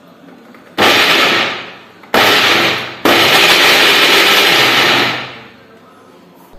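Preethi Chef Pro electric mixer grinder running in pulses, grinding chopped dates with roasted peanuts: two short bursts, then a longer run of about two seconds. Each burst winds down as the motor is switched off.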